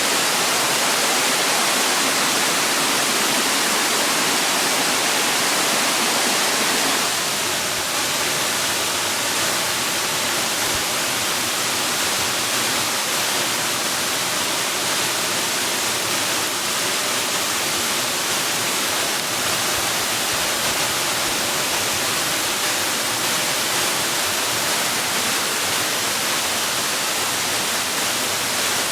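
Rushing water, like a waterfall, making a steady dense hiss; about seven seconds in it drops slightly in level and its texture changes.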